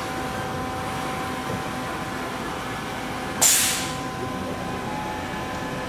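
Haas VF-6 CNC vertical machining center running with a steady hum of several fixed tones. About three and a half seconds in comes one short, loud hiss of compressed air that fades within half a second.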